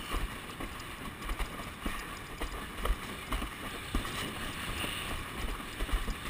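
Windsurf board sailing over choppy water: wind buffeting the action camera's microphone, with irregular knocks and slaps of the board and rig on the chop.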